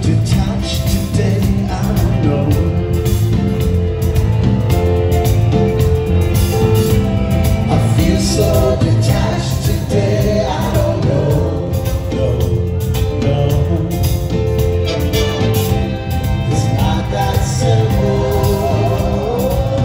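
Live band playing loud amplified music with a steady beat, a male lead singer singing into a handheld microphone over it.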